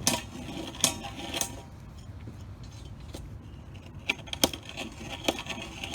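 Metal reamer clinking and scraping against the end of 3/4-inch steel EMT conduit as it is deburred: a few sharp metallic clicks in the first second and a half and again from about four seconds in, with quieter scraping between.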